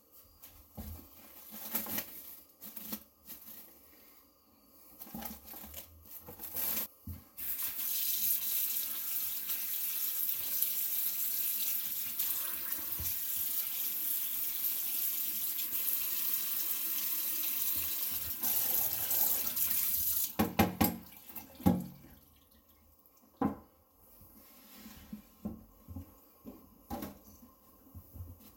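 Water running from a kitchen tap for about twelve seconds, then shut off. A few loud clunks of kitchenware follow, with lighter knocks before and after.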